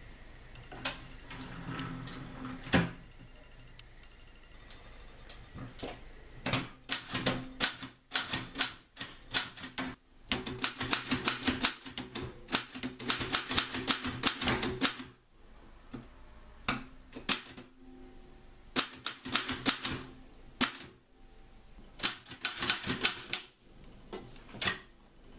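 Manual typewriter being typed on: runs of rapid key strikes, each a few seconds long, with short pauses between them. A single loud clack comes about three seconds in.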